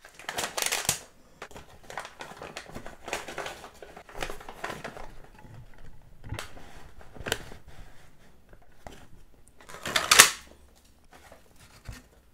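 Brown paper food wrapper crinkling and rustling in irregular bursts as it is unfolded by hand, with small clicks and taps between; a louder rustle comes about ten seconds in.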